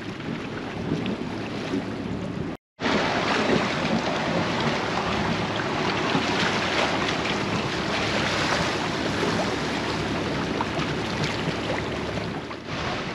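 Water rushing and splashing along a sailing yacht's hull under way, with wind buffeting the microphone. The sound drops out completely for a moment about two and a half seconds in, then comes back a little louder.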